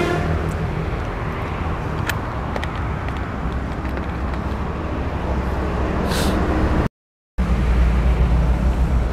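Steady outdoor background rumble and hiss, with no clear single source. It drops out abruptly for about half a second just before seven seconds in.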